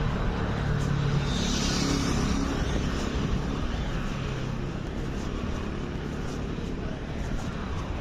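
Steady motor-vehicle engine and road noise, with a brief hiss about two seconds in.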